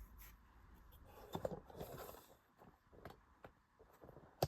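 Quiet handling of a sewing machine's controls: scattered small clicks and light rustling, with one sharper click just before the end, as the stitch settings are changed for a zigzag.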